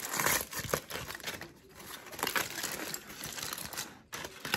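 Aluminium foil crinkling and crumpling as it is pulled open by hand, in short irregular rustles.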